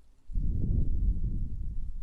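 A person blowing one long, slow breath straight onto an ASMR microphone's ear: a low, muffled rush of air that starts about a third of a second in and lasts about a second and a half.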